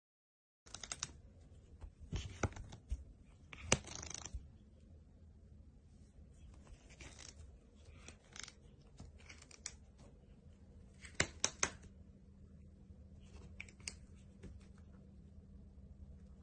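Scratching and rustling on fabric in short bouts, with sharp clicks. The loudest comes about three and a half seconds in, and three quick clicks about eleven seconds in, over a low steady hum.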